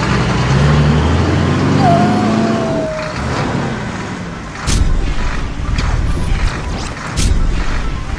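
Cartoon vehicle sound effects: an engine-like drone rising in pitch, then a low rumble with sharp clanks.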